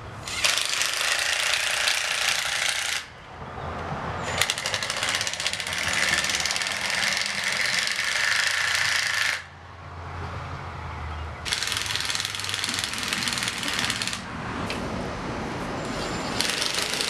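Cordless impact driver hammering 1/4-inch lag screws through wooden climbing holds into a tree trunk with a socket. It runs in several bursts of a few seconds each, with short pauses between.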